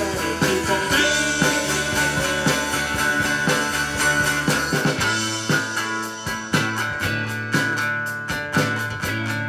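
Live rock band playing: electric guitars, bass guitar and drum kit, with a steady drum beat throughout.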